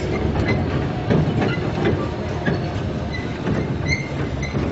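Trackless amusement train driving past on rubber tyres over concrete: a steady low rumble of its running gear, with irregular clanks and rattles from the coupled carriages.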